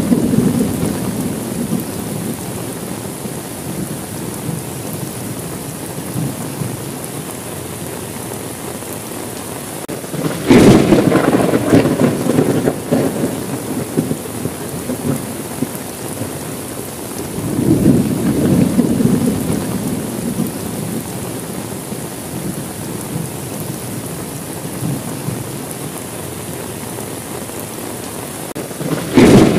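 Steady heavy rain with thunder. A rumble dies away at the start, a sudden loud thunderclap rumbles on for about three seconds from about ten seconds in, a softer rumble comes around eighteen seconds, and another loud clap breaks right at the end.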